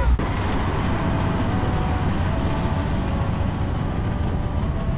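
Steady city road traffic noise from passing engines and tyres, with a faint engine hum that steps up in pitch about a second and a half in, picked up by a GoPro Hero 11's built-in microphone.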